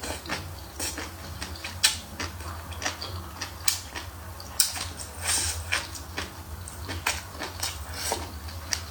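Close-miked eating of hotpot food: wet chewing and slurping with irregular sharp clicks, over a low steady hum.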